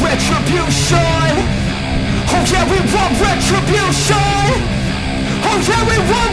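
Loud background rock music with electric guitar riffs over bass and drums.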